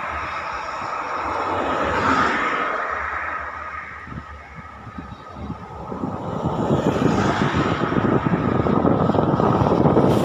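Road traffic passing close by. One vehicle goes past about two seconds in and fades. Another approaches and grows louder over the second half.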